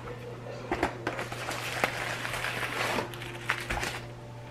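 Foil food wrapper crinkling and rustling as it is handled: a dense crackle from about a second in until near the end, with a few sharper clicks.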